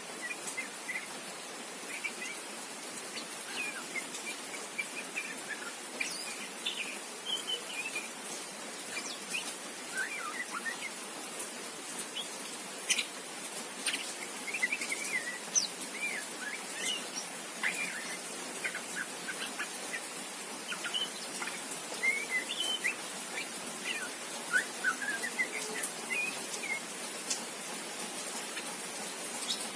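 Juvenile white-rumped shama practising its subsong: soft, scattered chirps and short rambling warbles, the unformed song of a young bird still learning to sing. A steady hiss runs underneath.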